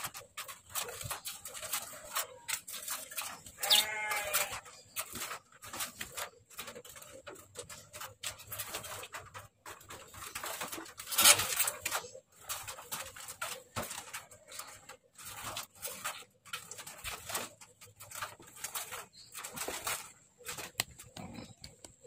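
An animal bleats once, wavering, about four seconds in, against a run of short clicks and chips. A sharp rattle about eleven seconds in is the loudest sound.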